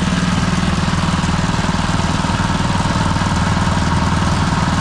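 Small engine running steadily at an even pace, driving a street-stall sugarcane juice crusher as cane is pressed.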